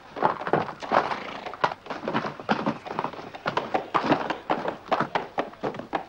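Hooves of several horses clattering: a dense run of irregular knocks and clops.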